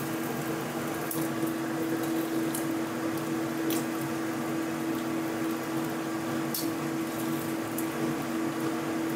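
Black sticky-rice cake slices sizzling in shallow oil in a steel wok over a gas flame, with a few light clicks of a spatula against the wok as the pieces are turned. A steady low hum runs underneath.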